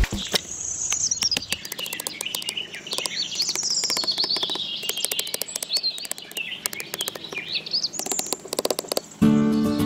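Birds chirping: a busy run of quick, high chirps and trills with many short sharp clicks among them. Electronic music with steady held notes comes in near the end.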